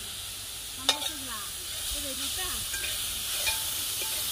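Mashithandu leaves sizzling in hot oil in a pan while being stirred, a steady frying hiss, with one sharp clack of the stirring spoon against the pan about a second in.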